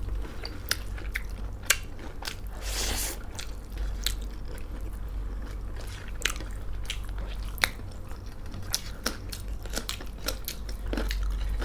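Close-up eating sounds of a rice, dal, cauliflower and pork chilli meal: chewing and biting, with many scattered sharp mouth clicks and crunches and a brief breathy noise about three seconds in.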